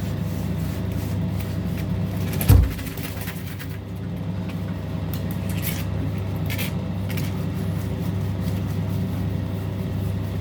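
Steady low motor hum. A single loud thump about two and a half seconds in, then a few faint clicks.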